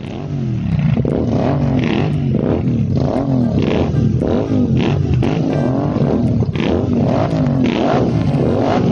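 Three Royal Enfield Interceptor 650 parallel-twin engines revving together through aftermarket slip-on exhausts (Atom, AEW and Gursewak) running without dB killers. The revs are blipped over and over, with pitches overlapping as they rise and fall.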